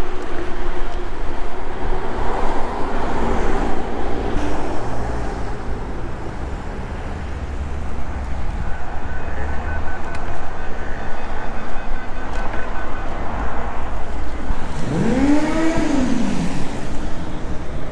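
Wind rushing over the camera microphone and tyre noise as an electric bicycle rides over wet pavement. A thin steady tone comes in for a few seconds around the middle, and a short tone rises then falls about fifteen seconds in.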